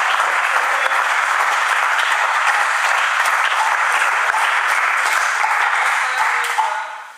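Spectators clapping steadily, stopping near the end.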